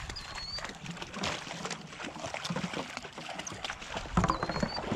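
Wading through shallow floodwater: irregular sloshing and splashing of legs pushing through the water with each stride, with a dog wading and splashing alongside. The biggest splash comes about four seconds in.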